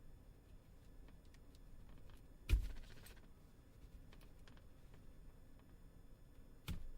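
Faint handling noise from work on a smartphone: light ticks, a sharper knock about two and a half seconds in with a brief rustle after it, and a smaller knock near the end, as the phone and a prying tool are handled while its seal gasket is peeled off.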